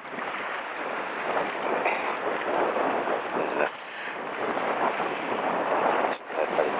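Wind on the microphone over sea waves washing against shore rocks, a steady noise.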